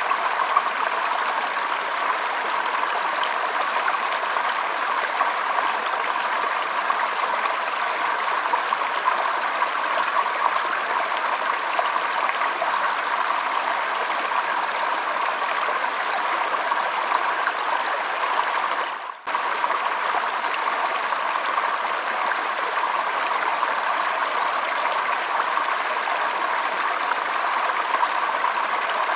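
Shallow stream flowing and trickling steadily, with a momentary drop-out about two-thirds of the way in.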